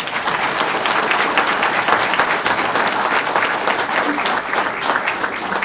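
An audience applauding: many people clapping together at a steady level.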